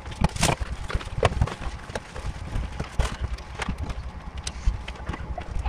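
Irregular clicks, knocks and light rustles of hands handling a laptop and packing materials on a metal workbench while packing the laptop for shipping.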